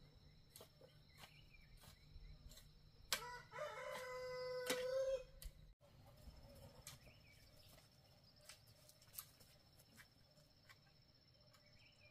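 A rooster crows once, starting about three seconds in, a single drawn-out crow of about two and a half seconds that grows louder before it breaks off abruptly. Faint scattered clicks are heard around it.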